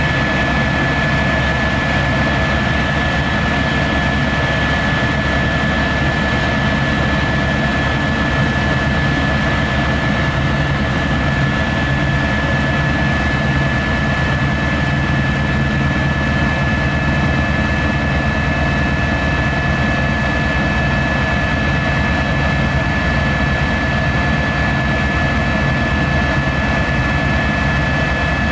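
Helicopter in flight heard from inside the cabin: a steady low drone of engine and rotor with a constant high-pitched whine over it.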